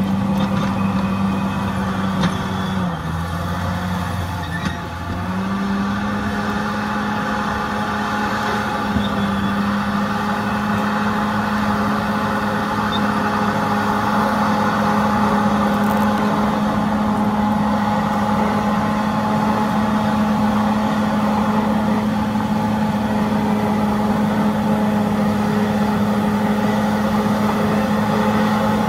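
Bulldozer's diesel engine running steadily. Its pitch sags a few seconds in, then picks back up and holds.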